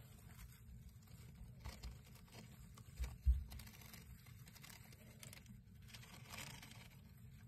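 Mice scurrying and rummaging, faint light scratching and rustling, with a couple of dull low thumps a little after three seconds in.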